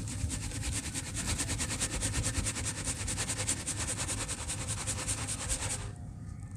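Round sieve of dry grey dirt shaken rapidly back and forth, the grains rattling on the mesh in a fast, even rhythm of many strokes a second, over a steady low rumble. The shaking stops about six seconds in.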